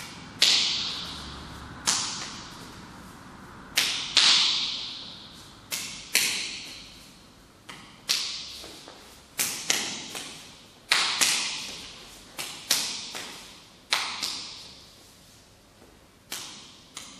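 Hands and forearms slapping against each other in a Filipino boxing hubud lubud flow drill, as parries, checks and taps meet the partner's arms. About twenty sharp slaps come in an irregular rhythm, a half second to two seconds apart, each followed by a short echo.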